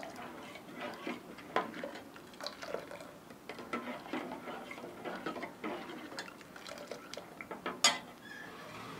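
A steel ladle stirs milk in a stainless steel saucepan, scraping and clinking irregularly against the pan's sides and bottom, with one sharp clink near the end. Cornflour slurry is being stirred into the hot milk to thicken it.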